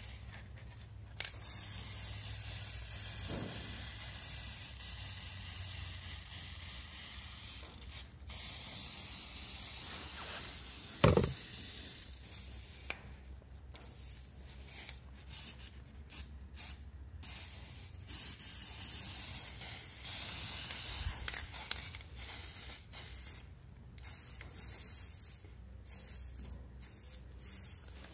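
Aerosol spray paint can hissing: two long sprays of several seconds each, then many short bursts. A single thump about eleven seconds in.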